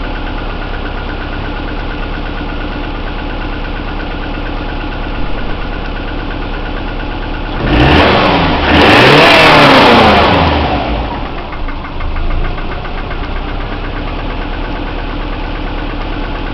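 Subaru EJ20 turbocharged flat-four engine idling with a rhythmic knock, revved up once about eight seconds in and falling back to idle; the engine is knocking.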